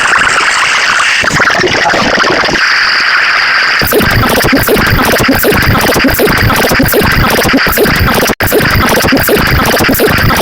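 Loud, harsh sound-effect clips: a noisy, hiss-like stretch, then, about four seconds in, a rapid stuttering pattern of about four pulses a second, with a brief cut-out about eight seconds in.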